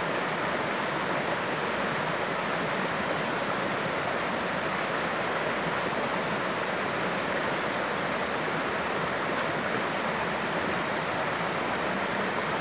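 Shallow river rapids rushing over rocks: a steady, even rush of water.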